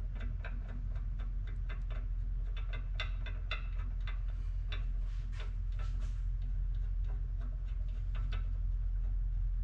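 Hand ratchet clicking in quick, uneven runs as a small bolt is run down and snugged, over a steady low hum.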